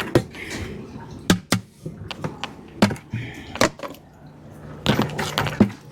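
Irregular sharp clicks and knocks of a hand tool on metal as drain plugs are unscrewed from the lower units of Mercury outboards, with a steady low hum joining about four seconds in.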